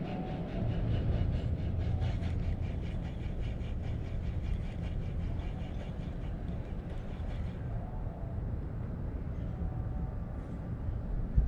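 Spinning reel being cranked during a lure retrieve, giving a rapid, even ticking that stops about two-thirds of the way through, over a steady low rumble of wind on the microphone.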